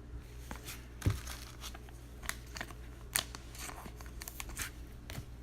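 Trading cards and their plastic and foil packaging being handled at close range: scattered crinkly rustles and light clicks, with a soft thump about a second in.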